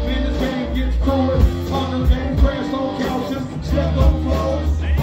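Live rock band playing loud, with a heavy bass and a pounding drum beat.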